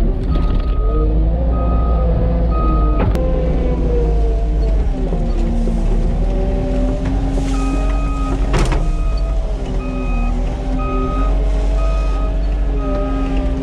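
Caterpillar skid steer's diesel engine working under load, its pitch rising and falling as the machine pushes snow and backs up. The backup alarm beeps about every 0.7 seconds, in one run over the first three seconds and another from past the middle to the end. Two sharp knocks, about three seconds in and again near the middle.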